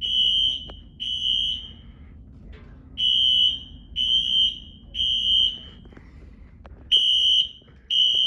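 Wheelock Exceder HSR fire alarm horn strobes sounding a high-pitched temporal-three evacuation pattern during a fire alarm system test. The beeps last about half a second each and come one per second in groups of three, with a longer pause between groups.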